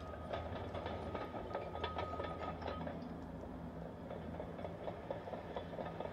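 An engine idling steadily, with light irregular rattling and a faint high steady tone that stops about three seconds in.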